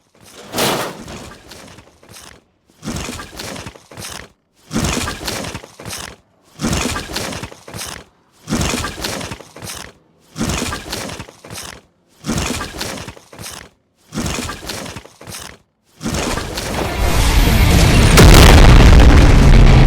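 Edited sound effects: eight sharp crashing bursts about two seconds apart, each dying away quickly. About sixteen seconds in, a loud, sustained blast with heavy bass begins and grows louder near the end.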